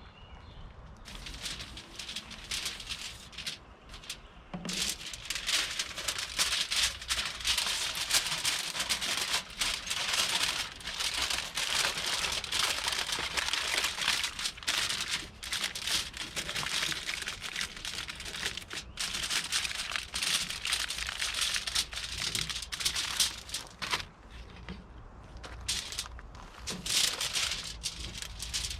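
Rain falling on the fabric of a rooftop tent: a dense, irregular tapping that gets heavier a few seconds in and eases briefly near the end.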